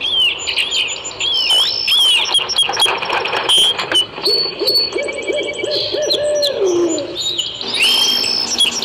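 A soundtrack of many overlapping bird chirps and calls played through portable amplifiers. Partway through, a lower pulsing call comes in and slides down in pitch at its end.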